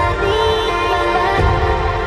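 Background music with long held notes and a deep low pulse.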